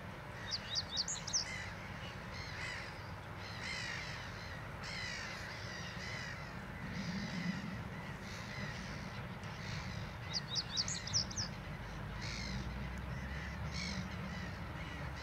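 Male reed bunting singing a short, quick phrase of high notes twice, about ten seconds apart, while other birds call repeatedly.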